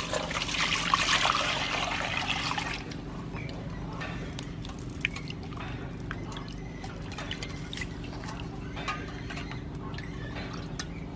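Water pouring onto a raw pork leg in a steel basin for the first three seconds or so, then smaller splashes and drips as hands rub and turn the meat in the water.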